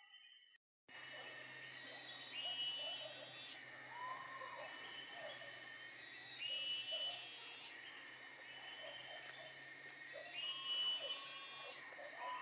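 Dogs barking briefly, cut off within the first second. Then forest ambience: a steady high chorus of insects, with a bird's falling call repeating about every four seconds.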